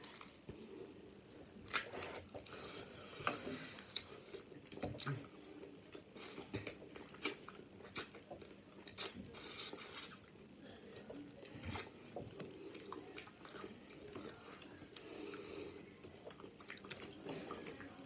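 Close-up eating of crab legs: wet chewing and sucking with many short, sharp clicks and cracks of crab shell, coming irregularly.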